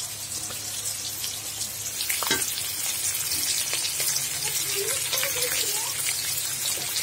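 Fish steaks sizzling and spitting in hot oil in an iron karahi. About two seconds in, a spatula knocks in the pan, and the frying is louder from then on.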